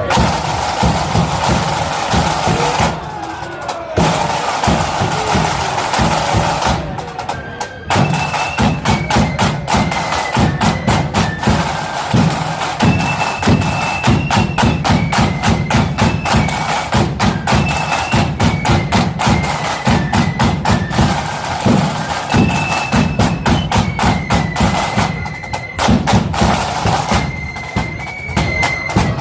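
Marching flute band playing: snare and bass drums beat a rapid march rhythm while the flutes carry a stepping melody that comes in clearly about eight seconds in. The drumming eases briefly twice in the first eight seconds.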